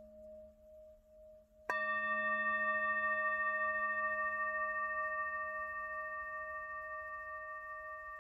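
Tibetan singing bowl, held on the palm, struck once with a padded mallet a little under two seconds in. It rings with several steady tones that fade slowly. Before the strike, the previous ring is dying away with a slow pulsing wobble.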